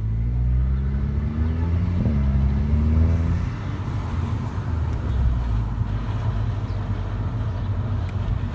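Volkswagen Golf GTI Mk5 with a DSG gearbox driving. The engine climbs in pitch, breaks off briefly about two seconds in as a gear changes, and climbs again. After about three and a half seconds it settles into a steady low rumble of the car on the move.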